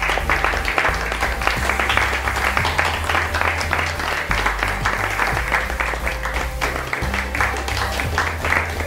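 Music with a bass line in held notes playing under sustained audience applause, many hands clapping at once.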